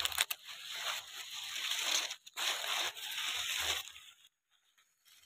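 Dry corn husks being torn and peeled back by hand from an ear on the stalk: a crackling, tearing rustle with many small snaps that stops about four seconds in.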